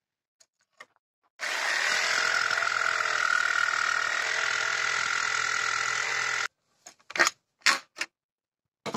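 Black+Decker electric jigsaw cutting through two stacked hardwood boards at once, running steadily for about five seconds and then stopping. A few short knocks follow near the end as the cut pieces are handled.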